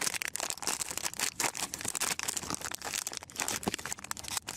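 Foil wrapper of a trading-card pack crinkling and tearing as it is worked open by hand, a steady run of irregular crackles.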